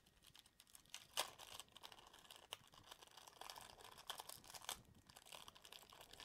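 Amber Kapton tape being handled and pressed down on a 3D printer's heatbed, a faint crinkling with scattered sharp crackles, the loudest about a second in and again about two and a half seconds in.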